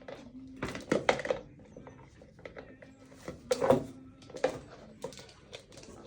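Pet parrot handling objects: a run of sharp knocks and clatters, loudest about a second in and again near the middle.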